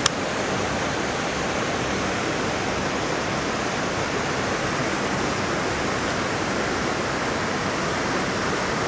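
Steady rush of flowing stream water, with one sharp click right at the start.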